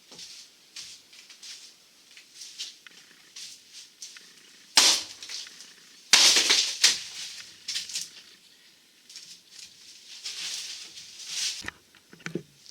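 Demolition work on a lean-to: irregular cracks, scrapes and rustling as the structure is pulled apart, with two loud sharp cracks about five and six seconds in.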